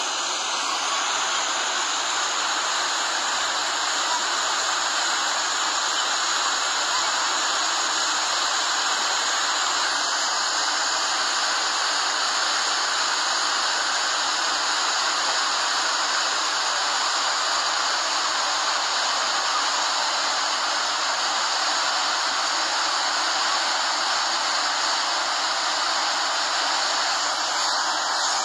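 Ouzoud waterfalls pouring over the cliff, their water rushing in a steady, unbroken hiss.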